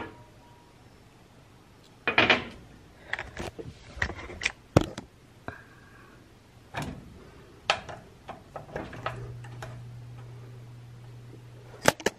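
Scattered clicks and knocks of things being handled in a kitchen as a handheld camera is moved about, with a short rustle about two seconds in. A low steady hum sets in about three-quarters of the way through.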